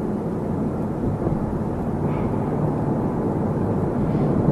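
Steady low rumble of a vehicle's engine and road noise, with an even hiss over it.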